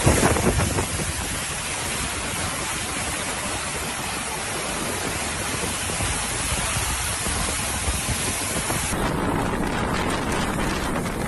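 Steady rushing noise of a storm, wind and water with no distinct tones. It changes abruptly about nine seconds in, where the footage cuts.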